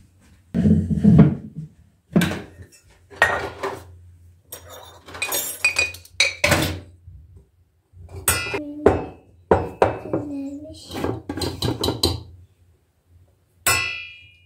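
Dishes and cutlery clinking and knocking as they are handled and set down, in a string of separate knocks with some ringing clinks.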